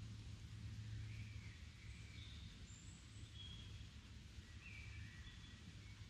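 Faint lakeside ambience: songbirds give about eight short, scattered chirps over a steady soft hiss and a low steady hum.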